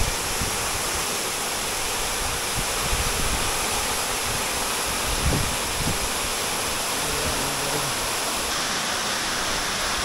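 Tall waterfall pouring into a rock pool: a steady rush of falling water.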